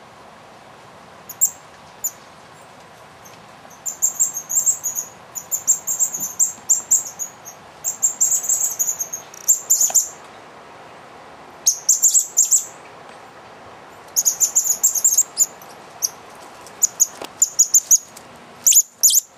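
Baby white-nosed coati making rapid runs of very high-pitched chirps, several a second, broken by short pauses.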